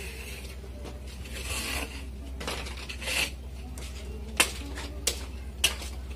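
Long pandan leaves rasping and rustling as they are handled and worked by hand, in a few separate scraping strokes, with three short sharp clicks in the second half.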